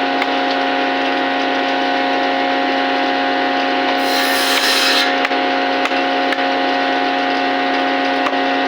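Electric woodworking power tool running steadily with a constant motor whine, biting into wood briefly about four seconds in.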